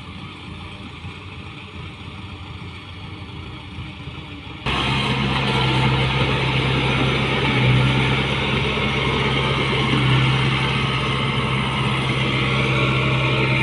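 Farm machine engine running steadily; a little under five seconds in the sound jumps suddenly much louder, to a steady low engine drone with heavy mechanical noise on top.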